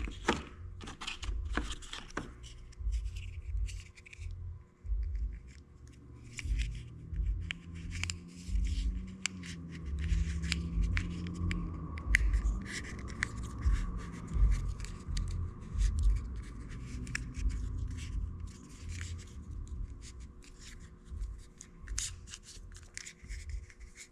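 Hands working with electrical wire and small hand tools: irregular clicks, snips and rubbing of wire and heat-shrink tubing being handled, with soft knocks on the bench.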